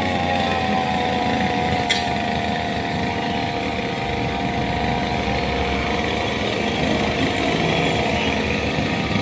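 An engine running at a steady speed, with one sharp click about two seconds in.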